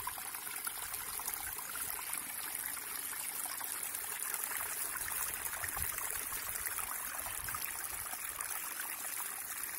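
Shallow stream water trickling steadily over rocks in a small cascade.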